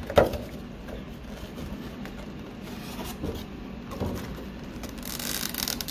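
Cardboard collection box and its contents being handled: a sharp knock just after the start, then a few soft clicks and a rustle near the end.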